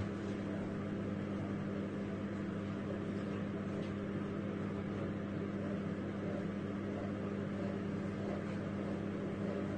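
A steady low machine hum that does not change.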